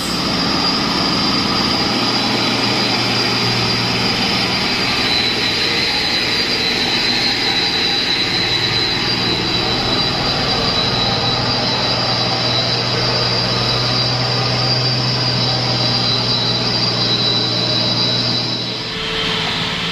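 Diesel engine of a loaded Mitsubishi Fuso 220PS dump truck running close by at a steady pitch, with a steady high whine over it. It cuts off abruptly near the end.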